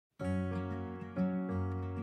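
Music starts a moment in, with sustained chords and a new chord about a second later.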